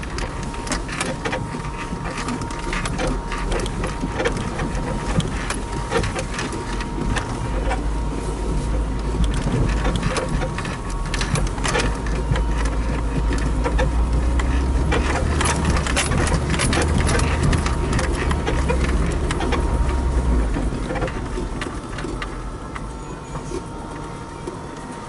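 Lada 4x4 Niva heard from inside the cabin, driving slowly over rough unpaved ground. The engine and road drone swells and eases, under frequent rattles, knocks and clicks from the body over the bumps.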